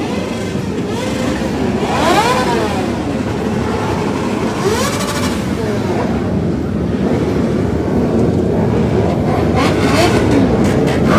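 Many motorcycle engines running together as a large parade of bikes rolls past. Individual engines rev up and down in pitch every few seconds over the steady din.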